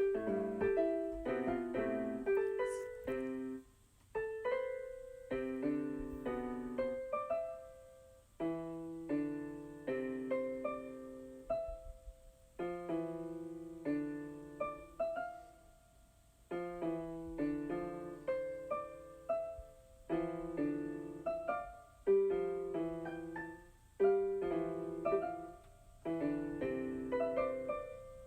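Background music played on an electronic keyboard with a piano sound: a simple melody and chords in short phrases of a few seconds each, with brief pauses between them.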